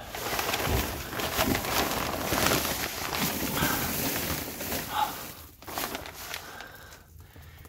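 Plastic vapour-barrier sheeting on a crawlspace floor crinkling and rustling as a person crawls across it. It dies down about two thirds of the way through, leaving a few scattered crackles.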